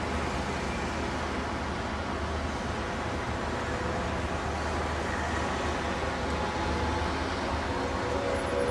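Steady road traffic noise from cars and a motorcycle driving past on a busy city road, with a constant low rumble.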